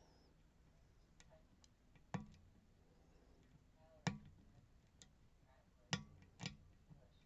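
Small, sharp clicks of a lock pick and tension tool working the pins of a Robur sidebar lock, spaced irregularly: four clearer clicks and a few fainter ones.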